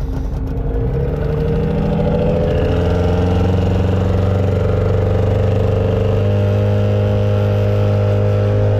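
Hangkai outboard motor pushing a small boat, speeding up with its pitch rising over the first few seconds and then running steady at cruising speed, with the wash of the wake behind it.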